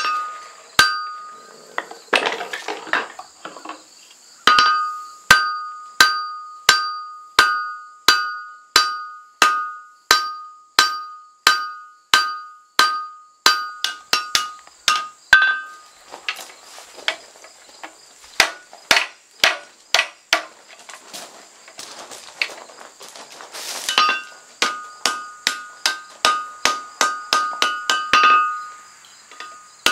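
Blacksmith's hand hammer striking red-hot steel on an anvil while forging a froe: long runs of steady blows, about one and a half a second, each with a bright metallic ring. A looser, uneven patch of blows comes in the middle, then a faster run near the end.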